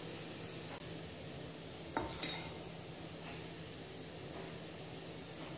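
Metal spoon clinking lightly against crockery while spooning sauce over chicken skewers, with a couple of sharper clinks about two seconds in, over a steady faint hiss.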